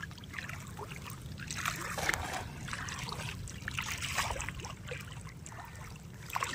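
Shallow river water sloshing and splashing irregularly as someone wades through it, over a steady low rumble.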